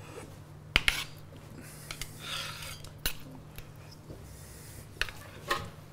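A spoon clinking and scraping against a bowl as mango salad is served out: a few sharp clinks about two seconds apart, with a soft scrape between them.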